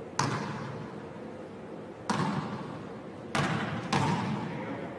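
A basketball bouncing on a hardwood gym floor, heard as four sharp bangs that echo around a large gym, the last two about half a second apart.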